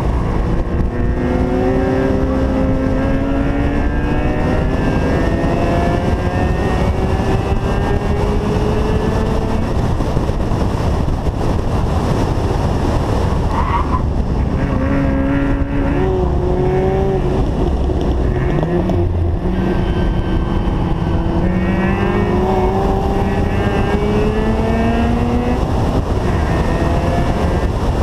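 Mazda RX-7 rotary engine running hard on track, its pitch climbing through the gears and dropping back at several shifts and lifts, over steady road and wind rush.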